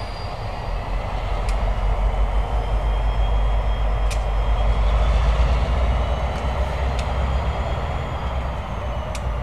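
Diesel engines of two EMD road-switcher locomotives, a GP50 and a GP38-2, running light with no cars: a low rumble that swells to a peak about halfway through, then eases off, with a faint high whine above it.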